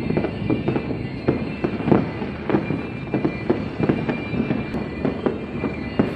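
Fireworks going off in a dense, irregular string of sharp bangs and cracks, about three a second.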